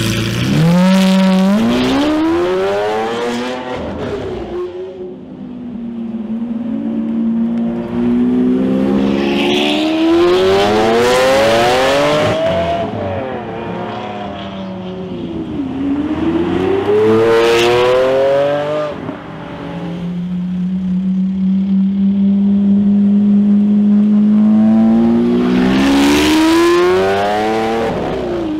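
Lamborghini Aventador V12 engines accelerating hard past, about four pulls in turn. Each engine note starts low and steady, climbs steeply in pitch to high revs, then drops away as the car goes by.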